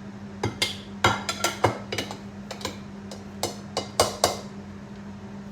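Metal kitchenware clattering: a dozen or so sharp, irregular knocks and clinks of utensils and bakeware, with brief ringing, over a steady low hum.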